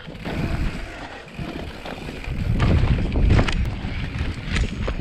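Wind buffeting the microphone over the rumble and rattle of a mountain bike riding rough ground, with scattered knocks; it gets louder about halfway through.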